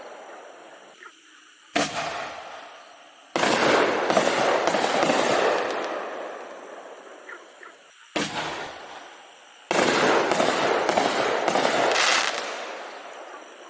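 Consumer aerial firework shells bursting overhead: four sharp booms a few seconds apart, each trailing off in a long, fading crackle. After the second and the last boom comes a quick run of sharp cracks.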